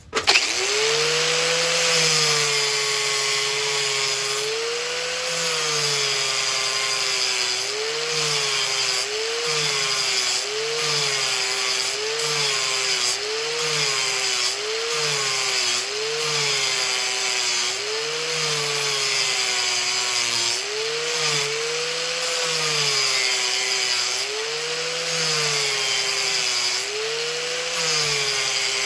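Power grinder sharpening a lawn mower blade. It starts up suddenly, and its motor pitch sags and recovers again and again as the blade is pressed into the wheel in repeated passes, about one a second at the quickest.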